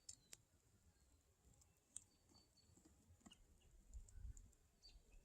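Near silence, broken by a few faint, sharp crackles from a driftwood campfire burning down to cooking embers.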